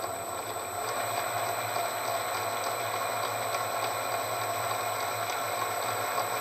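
Metal lathe running with its chuck spinning, a steady mechanical whir over a low hum, as it twists two wires together; it stops at the very end.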